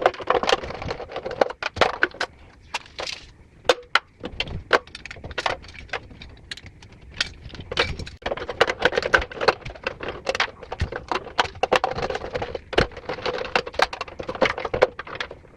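Quick, irregular small clicks and rattles from hands working on the water heater's electrical wiring, joining the supply wires to the heater's leads.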